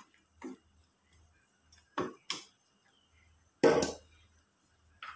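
A ladle knocking and clinking against a wide aluminium cooking pan, a string of short knocks with the loudest two close together a little past halfway.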